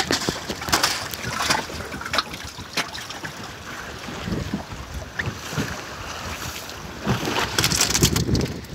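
Strong wind buffeting the microphone over sea water splashing and slapping against a jangada's hull in a choppy open sea, with irregular sharp knocks and gusts.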